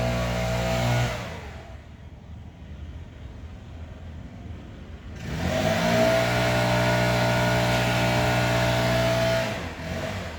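Stihl BR 600 backpack leaf blower's 4-MIX engine running at full throttle, dropping to idle about a second in. It revs back up about five seconds in, holds a steady high-speed note for about four seconds, then falls back to idle near the end.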